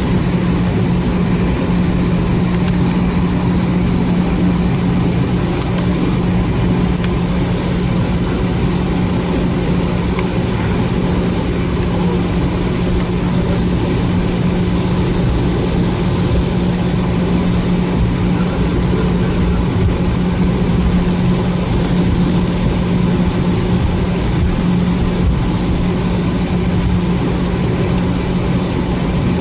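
Steady cabin noise inside an Airbus A319 taxiing after landing, its jet engines running at idle: a constant low hum over an even rush of air and engine noise.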